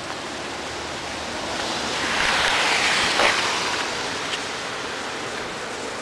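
Heavy thunderstorm rain pouring onto a flooded street, a steady hiss of water that swells louder for about a second and a half midway.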